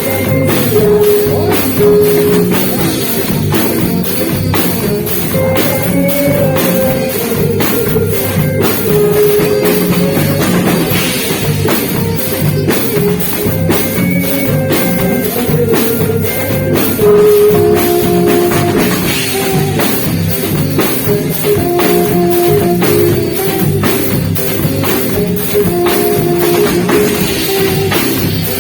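Live band playing a beiradão medley: a saxophone carries held melody notes over a driving drum kit and guitar.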